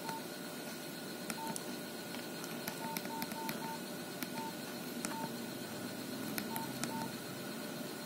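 Nokia 5130 XpressMusic keypad tones: short beeps, all at one pitch, as keys are pressed to scroll through the phone's menus. About ten beeps come at uneven spacing, with a quick run of four in the middle, faint over a steady hum.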